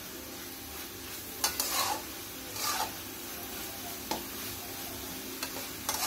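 Metal spatula stirring and scraping shredded cabbage in a metal kadai, a few scraping strokes over a steady sizzle of the vegetables frying in the hot pan.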